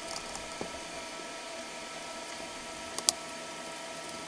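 Steady fan-like hum and hiss with faint steady tones, and the plastic case of a radio transmitter being handled as it is closed up. A couple of light knocks come early, and a sharp click about three seconds in is the loudest sound.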